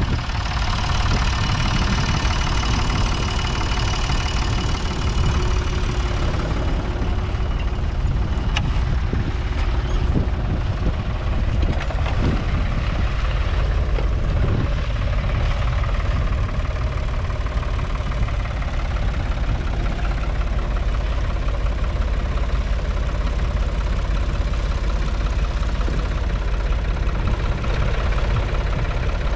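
Ford 4000 tractor's 3.3-litre three-cylinder diesel engine running steadily.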